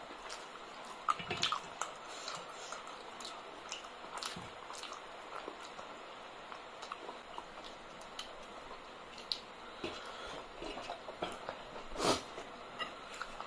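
Eating by hand: fingers squishing rice and curry against metal plates, with wet mouth sounds of chewing. Small scattered clicks throughout, and one sharper click near the end.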